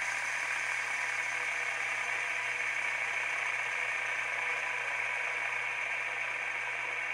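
A fidget spinner spinning with a steady whir from its bearing.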